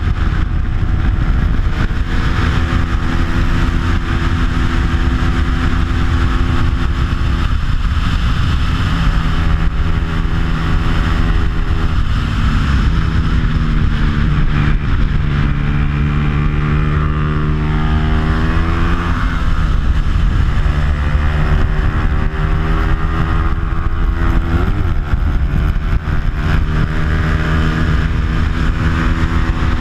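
Bajaj Pulsar 200's stock single-cylinder four-stroke engine with an aftermarket exhaust, running hard at high revs on a race track, with wind rush over the microphone. The engine pitch sags and climbs again about halfway through, and dips briefly again later, as the rider eases off and accelerates through the corners.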